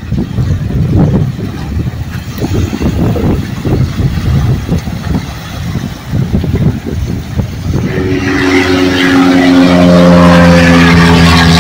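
Gusty wind rumbling on the microphone, then about eight seconds in a motor engine starts running loud and steady, rising slightly at first.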